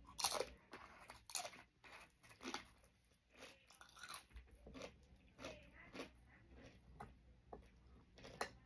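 Crunching and chewing of Doritos tortilla chips, close to the microphone: a loud crunching bite right at the start, then several more irregular crunches as the chewing goes on.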